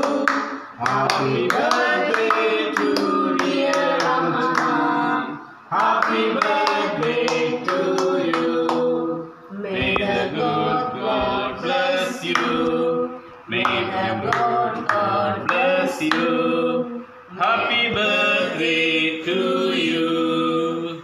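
Several people singing a birthday song together, with rhythmic hand-clapping for the first few seconds. The song goes in lines of about four seconds with short breaks between them.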